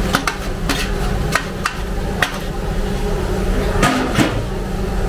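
A metal ladle clanks and scrapes against a large iron kadai as cooked rice is stirred and tossed into vegetables. About eight sharp, irregular clanks sound over a steady low rumble, and the two loudest come near the end.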